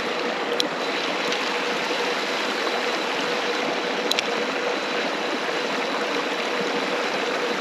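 Creek water rushing steadily, with two light ticks about half a second in and about four seconds in.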